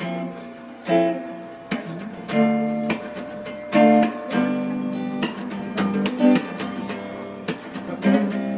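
Background music: an acoustic guitar strummed and plucked, with a sharp attack on each chord.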